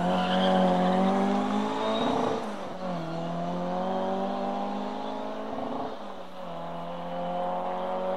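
Rally car engines at high revs through a chicane. The engine note holds high, breaks and drops about two seconds in, climbs again, dips once more near the six-second mark, then rises as the car accelerates out.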